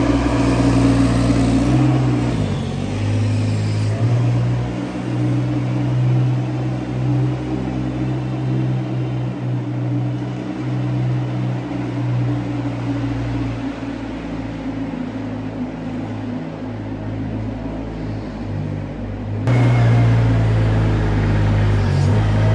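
Compact farm loader's engine running steadily as it scrapes the barn alley, with a low even hum. It gets suddenly louder about three seconds before the end.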